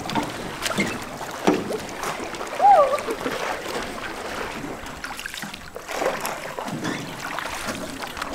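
Small hand-rowed boat under way: oars dipping and splashing in the water, with scattered light knocks. A short sliding vocal sound about three seconds in is the loudest moment.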